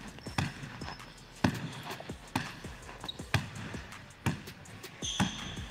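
A basketball being dribbled on a hardwood gym floor, about one bounce a second.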